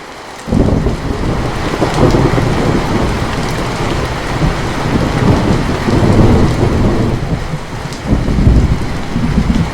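A thunderclap breaks in suddenly about half a second in and rolls on as a loud, low rumble with several swells, over steady rain.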